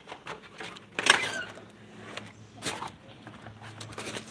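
Handling noise from a large foam board being carried: scattered knocks and rustles, the loudest knock about a second in.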